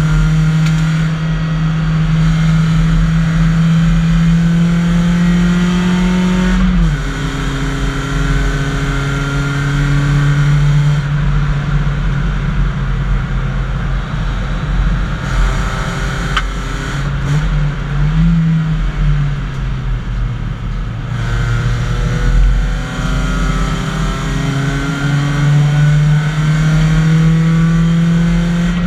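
BMW 318i four-cylinder race car engine, heard from inside the cabin, pulling up through the revs under throttle with an upshift about seven seconds in. Through the middle it runs lower and lighter for a stretch, then pulls up through the revs again toward the end.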